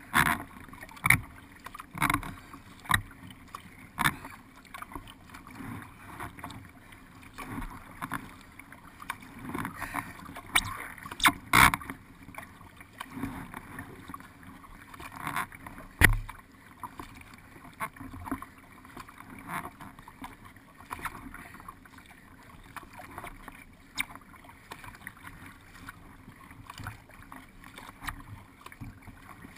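Paddle strokes splashing into the water beside a racing canoe or kayak, about one stroke a second at first and then softer and less regular, with water washing along the hull. A single sharp knock about halfway through.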